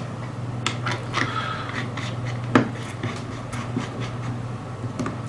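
Small clicks and short scraping rubs of metal parts being handled as the top of a rebuildable vape tank is screwed back on after filling, with one sharper click about two and a half seconds in. A low steady hum runs underneath.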